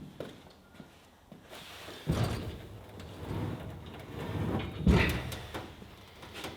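A heavy steel tool chest sliding into a workbench opening. It scrapes and rumbles from about two seconds in, then lands with a heavy thud about five seconds in.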